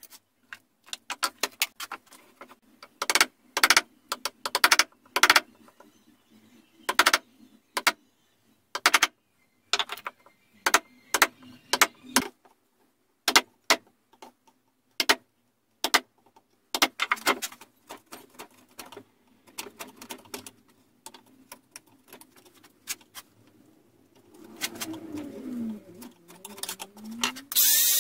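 A steel wood chisel knocked into a wooden slab, cutting out a square hole: sharp, irregular knocks and clicks of the tool biting and chips breaking away. Near the end comes a short whirring that rises and falls in pitch.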